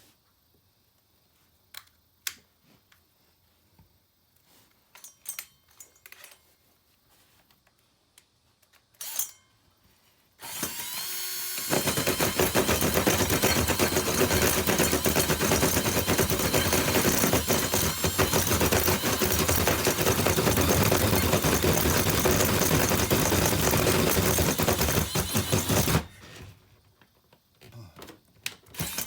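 Power drill boring a hole through the camper's wall: it spins up with a short rising whine about ten seconds in, then runs under load with a fast rattle for about fourteen seconds and stops suddenly. Before it starts there are only a few faint clicks and knocks.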